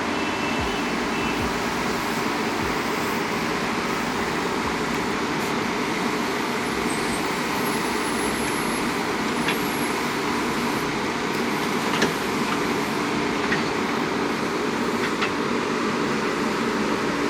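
JCB backhoe loader's diesel engine running steadily, with a few short sharp knocks now and then.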